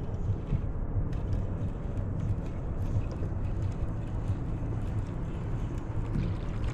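Wind rumbling on the microphone, steady and uneven, with scattered faint clicks.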